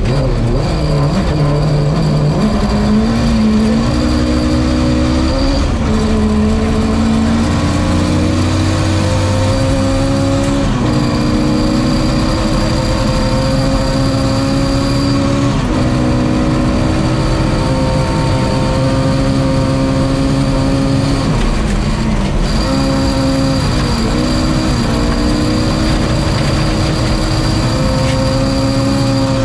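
Ford Escort Mk2's Cosworth BDG twin-cam four-cylinder rally engine under hard acceleration, heard from inside the car: its pitch climbs in each gear and drops sharply at each of several upshifts, over steady road noise from the gravel.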